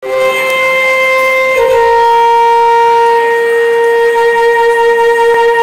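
A wind instrument holding one long, steady note, stepping slightly lower in pitch about a second and a half in.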